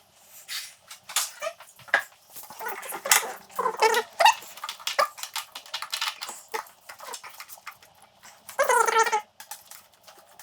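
A dog whining in short high calls, with a longer, louder call near the end, amid scattered clicks and knocks.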